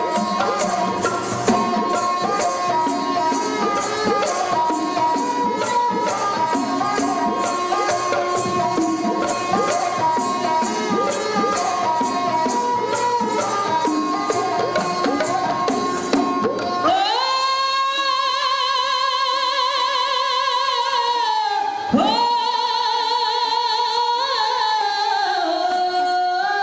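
Punjabi dhadi ballad singing with instrumental accompaniment and rapid, regular percussion strokes. About 17 seconds in the percussion drops out and long wavering notes are held, broken once, then slide down near the end.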